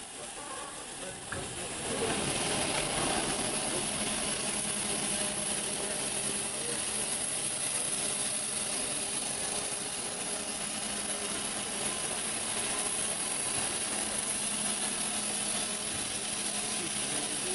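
Steam locomotive letting off steam: a loud, even hiss that starts abruptly about two seconds in and holds steady.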